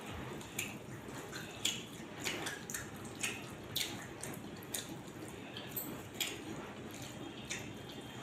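Wet eating sounds: fingers squishing and tearing gravy-soaked parotta on a steel plate, with chewing, heard as irregular short wet clicks and smacks.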